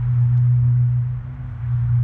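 A steady low hum, with a fainter tone just above it, that rises and falls a little in strength.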